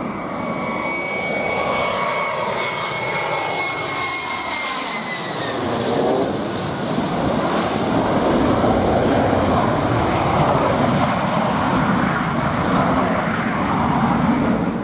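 F-35 Lightning II's single Pratt & Whitney F135 jet engine as the fighter passes low. A high whine falls in pitch over the first five seconds, then a loud, heavy rumble holds steady.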